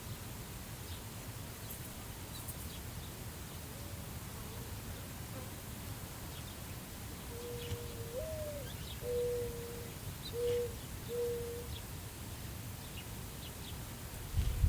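Steady wind over prairie grass with scattered faint high bird chirps. In the middle comes a low, soft cooing: a note that slides upward followed by three held coos, the song pattern of a mourning dove. A brief low thump comes right at the end.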